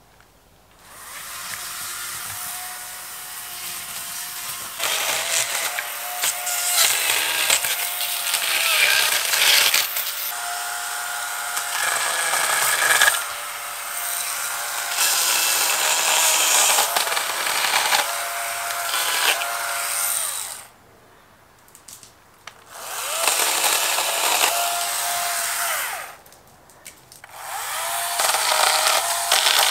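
Oregon battery chainsaw running in long cutting bursts, its motor whine rising and falling over a bright chain hiss; it stops twice for a second or two near the end.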